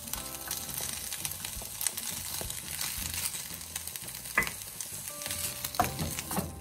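Diced bacon and smoked sausage sizzling in a hot frying pan, with a wooden spoon knocking against the pan a few times as it stirs them, mostly in the second half.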